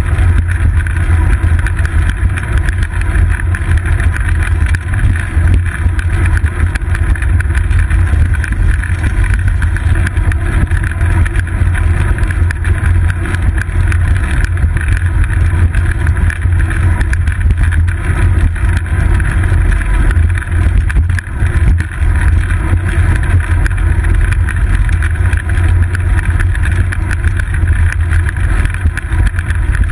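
Steady, loud low rumble of wind buffeting and frame vibration from a bicycle rolling over paving stones, picked up by a GoPro Hero 2 mounted on the seat post.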